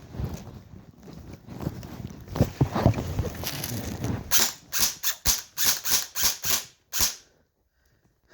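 Footsteps and rustling, then an airsoft gun firing about nine quick single shots over three seconds. The sound cuts off abruptly about a second before the end.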